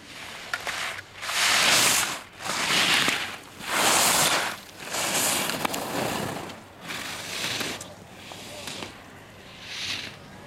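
Ski edges scraping and carving on hard-packed snow through slalom turns: a swell of hiss for each turn, about one a second, louder in the first half and weaker later on.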